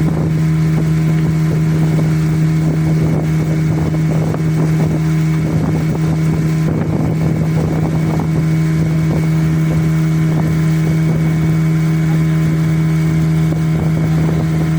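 Motorboat's outboard engine running at a steady speed, with a constant low drone and hissing water and wind noise over it.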